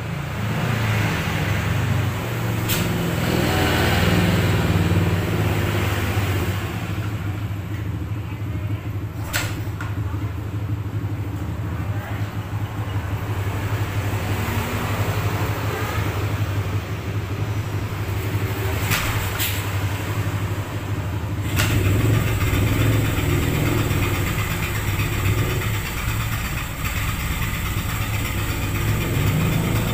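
Yamaha XS650's air-cooled parallel-twin engine catching on a kick, choke on, at a cold start after two weeks unused, then idling steadily. A few sharp clicks sound over the idle.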